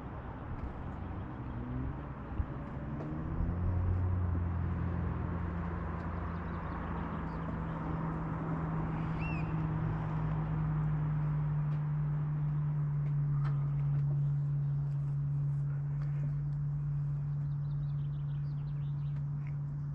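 A steady low engine hum swells in about three seconds in and holds on, with a few faint bird chirps over it.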